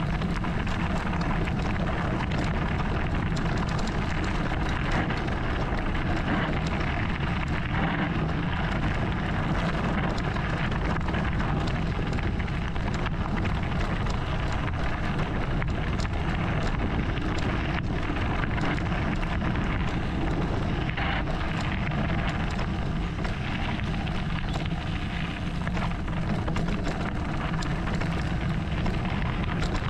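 Mountain bike rolling downhill over a loose gravel and stone track: the tyres crunch over the stones in a steady rattle of many small clicks, with wind on the microphone.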